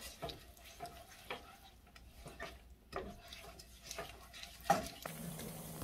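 A silicone spatula stirring thick, melting cheese sauce in a nonstick pan: soft, irregular scraping strokes against the pan, the loudest just before a steady low hum takes over near the end.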